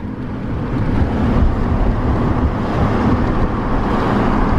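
Steady low rumble of road and engine noise from a car driving, heard from inside the cabin.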